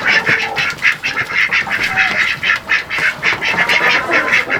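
Ducks quacking over and over, a rapid string of short calls several times a second.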